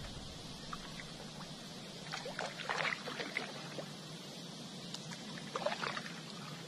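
Kayak paddle strokes through the water: two splashy, trickling strokes, about two seconds in and again near the end, over a steady hiss.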